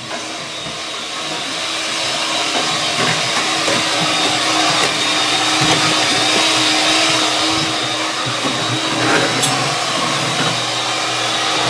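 Corded electric hand mixer running steadily, its beaters whipping a thick mash in a steel pot: a continuous motor whir that grows a little louder over the first couple of seconds.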